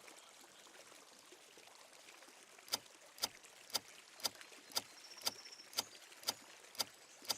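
Ticking of a countdown timer: ten sharp ticks about half a second apart, starting nearly three seconds in after a near-silent stretch.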